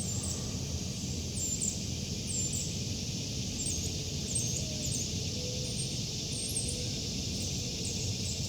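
Forest evening soundscape: a steady high drone of cicadas with many short, high bird chirps scattered throughout.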